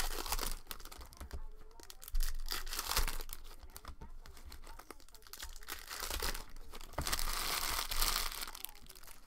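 Foil trading-card pack wrappers being torn open and crinkled by hand: irregular bursts of crackling rustle with small clicks, loudest about two seconds in and again between about six and eight seconds in.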